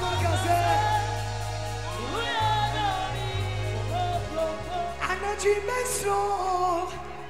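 A woman singing a gospel song live into a microphone, her melody sliding up and down over a band with steady bass notes. The bass thins out about four seconds in, leaving the voice over lighter accompaniment with a couple of cymbal-like swishes.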